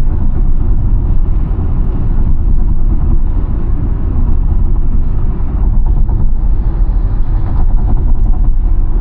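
Loud, steady low rumble with no clear tones, heaviest in the bass.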